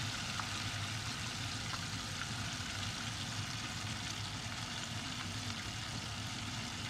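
Food deep-frying in a saucepan of hot oil: a steady sizzle and bubbling, with a low steady hum underneath.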